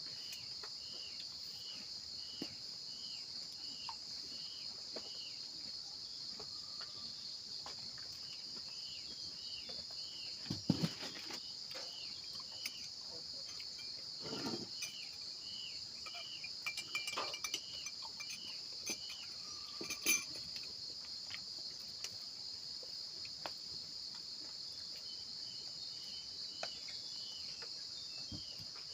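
Steady insect chorus: a continuous high drone with a short chirping call repeated about twice a second. A few short knocks and rustles come through near the middle.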